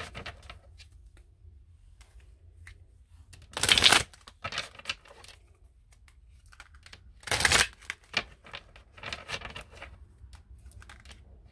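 A deck of oracle cards being shuffled by hand: two short loud rushes of shuffling about four and seven and a half seconds in, with light card clicks and rustles between them.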